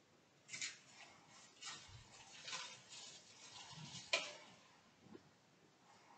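Faint clicks and taps of a small dish and hands on a kitchen benchtop as plain flour is sprinkled over sticky dough, with soft rustling between them. One sharper click, about four seconds in, is the loudest.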